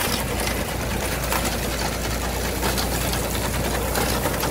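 A McCormick reaper and binder clattering steadily as it cuts and binds oats, its ground-driven cutter bar, canvases and knotter working in rapid ticks, over the steady running of the Fordson Dexter tractor's engine pulling it.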